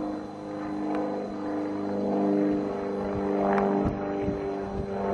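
Engine of a small tourist train running steadily, a low drone, with a few low thumps between about three and a half and five seconds in.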